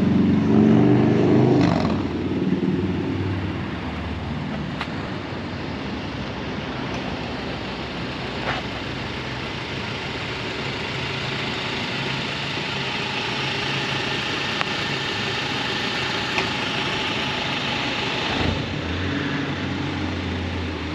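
Car engine breathing through an aftermarket 3-inch cat-back exhaust with stock catalytic converters, revved briefly at the start and then running steadily. Its tone drops and changes abruptly near the end.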